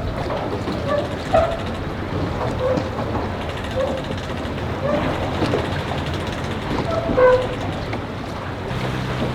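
Windy outdoor background with a few short, distant voice calls scattered through it. Near the end a low, steady engine hum comes in, typical of a boat motor idling.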